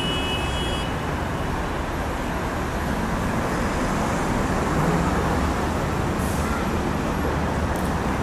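Steady noise of busy road traffic, with a brief high squeal in the first second.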